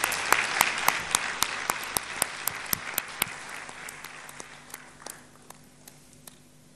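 Hall audience applauding, with one nearby person's sharp claps at a steady pace of nearly four a second standing out from the crowd's clapping. The applause thins out over the last few seconds and stops.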